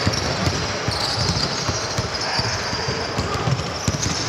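Basketball bouncing on the court in play, a run of irregular thumps.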